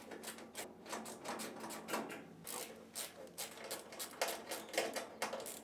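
Quick, irregular light clicks and scrapes of a 1/4-inch nut driver turning out screws on the back of a top-load washer.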